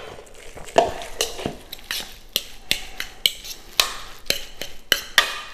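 A metal fork stirring sauced pulled pork in a bowl, clinking and scraping against the bowl in quick, irregular strokes, about two or three a second.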